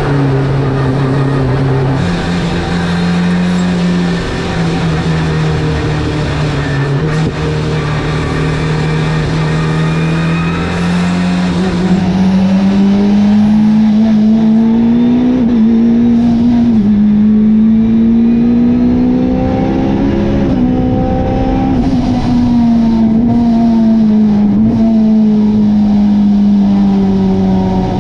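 Race car engine running hard on track. The revs climb through the gears with sudden drops at each change, then fall away as it slows.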